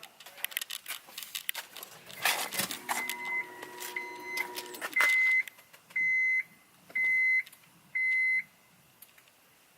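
A car's electronic warning chime beeping six times, about once a second, the first beep with a lower tone under it. Clicks and rattles of handling come before the chime.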